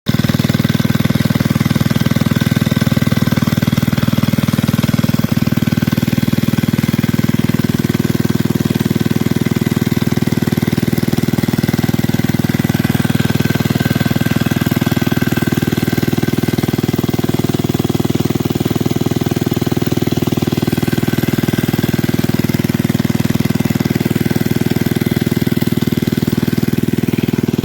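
Greaves diesel engine running at a steady speed, loud, with a fast, even beat.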